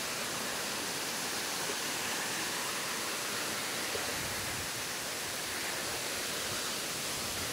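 Waterfall rushing steadily: a constant, even hiss of falling water.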